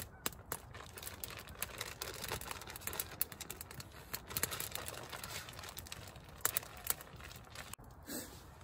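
Plastic bag crinkling as bannock dough is kneaded inside it, with scattered pops and crackles from a dry-wood campfire.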